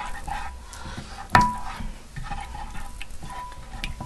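Wooden spoon stirring thick tomato sauce in a glass baking dish, scraping and clicking against the glass, with one sharp knock about a second and a half in that rings briefly.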